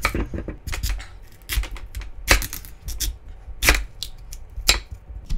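Kitchen knife slicing a Korean white radish on a wooden cutting board: a series of sharp knocks as the blade goes through and strikes the board, at an uneven pace of roughly one every half second to a second.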